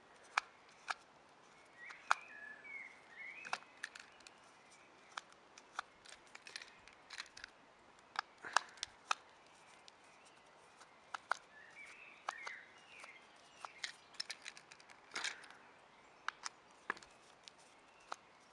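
A small screwdriver works the screw on the plastic battery cover of a Motorized Shane toy engine, making scattered sharp clicks and short scrapes. Faint chirps come twice, about two seconds in and again about twelve seconds in.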